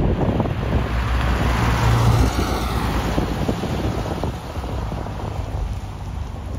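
1979 Volkswagen Beetle convertible's air-cooled 1.6-litre flat-four driving past, loudest about two seconds in as it passes, then fading as it pulls away.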